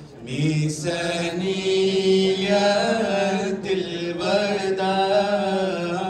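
A group of male voices chanting together, holding long notes with slow pitch changes and short breaks between phrases, as Sufi devotional chant.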